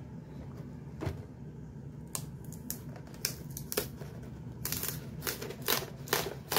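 Fingers handling and prying at a cardboard collector's box, opening its glued end flap: scattered clicks and taps of cardboard, coming thicker in the last couple of seconds.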